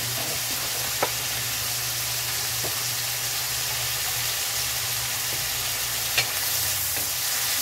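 Onions, tomatoes and peppers sizzling in oil in a frying pan: a steady frying hiss, with a couple of sharp clicks, one about a second in and one near the end.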